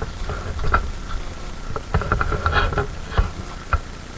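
Footsteps and rustling on a forest trail: irregular short crunches as someone walks.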